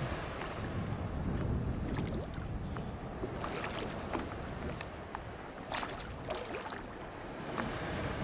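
Water splashing and sloshing at the surface, with several short sharp splashes, over a steady low rumble of wind on the microphone.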